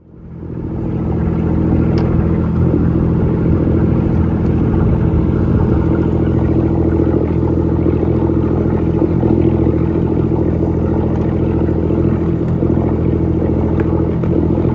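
Boat engine running steadily with a low, even drone, fading in at the start.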